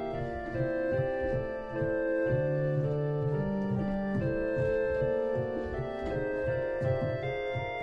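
Viscount Cantorum Trio digital classical organ playing several held notes together, with hands on two of its keyboards at once, the chords moving every half second or so over a quick pulsing bass.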